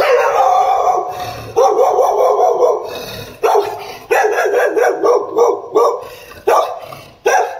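Labrador retriever barking loudly and repeatedly, about ten barks in a row, the first one drawn out.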